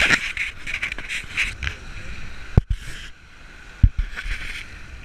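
Sea water rushing and splashing along the hull of a Contessa 32 sailing yacht heeled over in a strong breeze, in uneven surges. Two sharp low thumps stand out, about two and a half and four seconds in.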